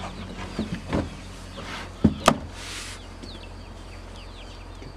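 A few sharp knocks and a short rustle of cardboard and foam packing as a heavy inverter is handled and set down in its box, the loudest a pair of knocks about two seconds in. Birds chirp repeatedly throughout, over a steady low hum.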